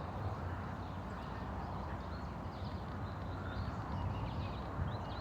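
Faint high chirps and rattling calls from crows and a bald eagle, many short notes coming thicker from about two and a half seconds in, over a steady low rumble.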